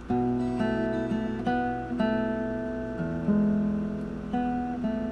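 Acoustic guitar in drop D tuning with a partial capo on the 2nd fret, fingerpicked: single notes plucked about twice a second, ringing into one another as a transition passage toward the finger-style chorus.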